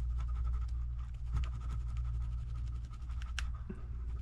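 Light scratching with scattered small clicks as glue residue is rubbed off an iPad's LCD panel, over a steady low hum.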